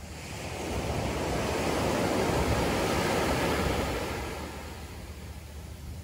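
Ocean surf: a wave breaking and washing up the beach, a rush that builds over a couple of seconds and then fades away.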